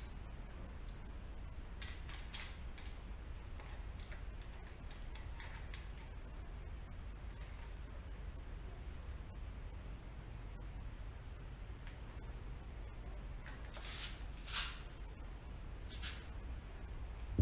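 A cricket chirping steadily, about three short chirps a second, over a low background hum. Faint clicks and scrapes of tools and bike parts being handled come now and then, the clearest about two-thirds of the way through.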